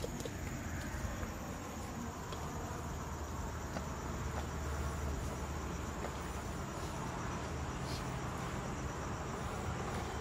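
Steady chirring of forest insects, with a low rumble on the microphone and a few faint ticks.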